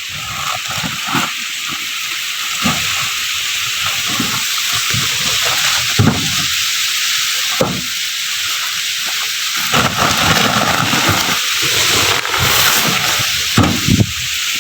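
Corn sheller machine running and threshing cobs: a loud, dense rushing rattle of kernels and husks, with irregular low knocks throughout.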